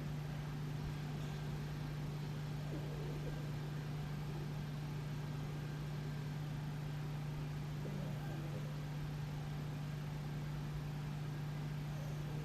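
Steady low hum over a faint even hiss, unchanging throughout: the background tone of a quiet house.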